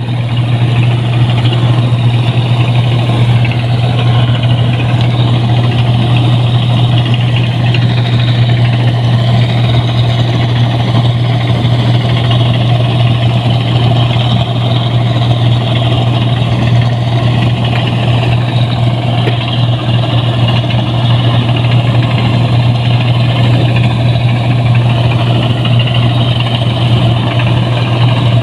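Rice combine harvester running steadily under load while cutting paddy: a loud, even engine drone with a strong low hum and the clatter of the cutting and threshing gear.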